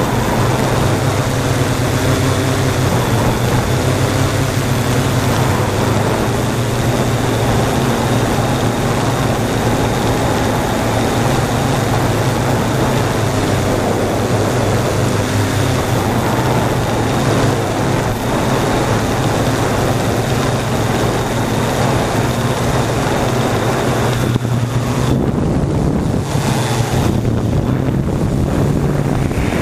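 Multirotor drone's electric motors and propellers running steadily in flight, a continuous low hum and buzz heard from the camera mounted on the drone, with wind noise on the microphone.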